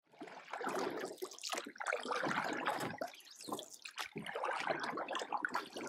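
Irregular trickling, splashing sound like running water, rising and falling unevenly without any steady tone.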